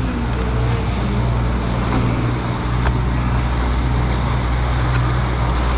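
Boat engine running steadily at trolling speed, a constant low hum under the rush of wind and water.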